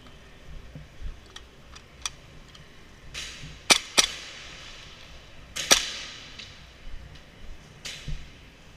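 Airsoft guns firing single shots indoors: sharp cracks, two loud ones in quick succession near the middle and another about two seconds later, with fainter, more distant pops around them.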